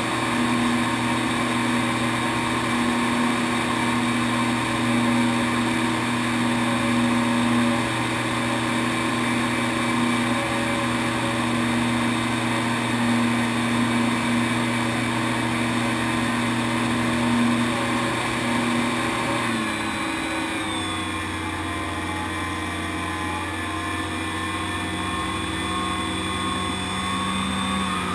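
RC model Piper J3 Cub's motor and propeller running steadily in flight, with wind rush over the plane. About two-thirds through, the pitch steps down and the sound gets a little quieter as the throttle is eased back, and the pitch drops again right at the end.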